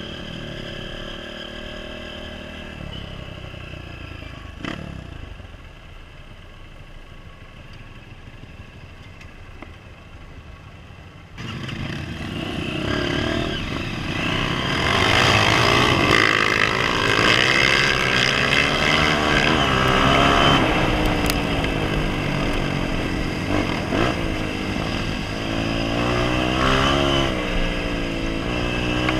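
Honda CRF230F's single-cylinder four-stroke engine heard from on board while riding a dirt trail, running at low revs at first. It turns suddenly louder about eleven seconds in, then revs up and down hard through the gears as the bike accelerates along a dirt road.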